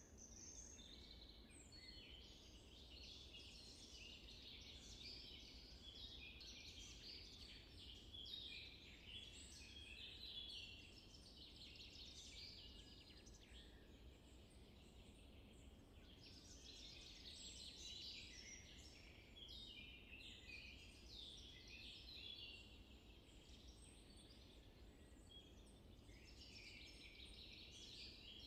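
Faint chorus of many small birds chirping and trilling together, swelling and easing in waves, over a low steady hum.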